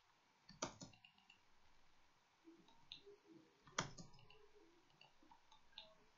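Faint clicks of a computer mouse and keyboard in a quiet room, with two louder clicks about half a second in and near four seconds.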